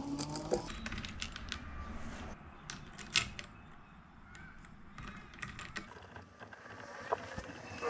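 Irregular small clicks and taps of hands handling a phone in its plastic waterproof case.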